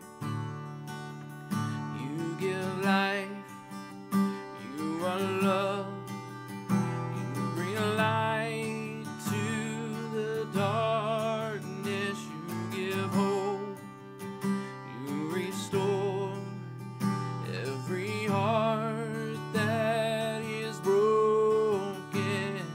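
A man singing a worship song with wavering, held notes, accompanying himself on a strummed acoustic guitar.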